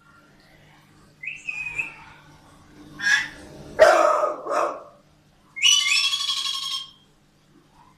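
A bird making a string of different calls: a short tonal call, then three harsh, bark-like calls in quick succession, then a longer, ringing call with many overtones near the end.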